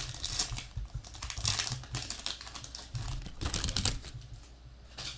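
Football trading cards handled and slid against one another in the hands, short spells of clicking and rubbing card stock with pauses between.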